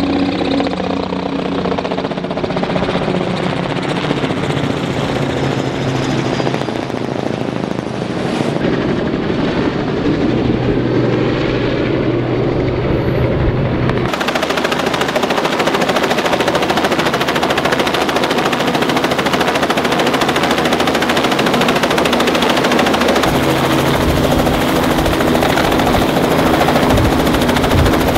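Robinson light helicopters flying low overhead. Their two-blade rotors give a steady, rhythmic thudding over the engine noise, and the tone sweeps up and down as they pass. About halfway through the sound changes abruptly to a denser, harsher rotor noise.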